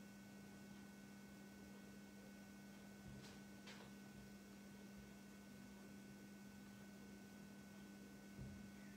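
Near silence: room tone with a steady low electrical hum, and two faint clicks about three seconds in.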